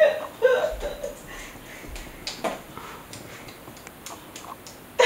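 A toddler's soft hand claps, a handful of light scattered pats, after a brief voice sound at the start.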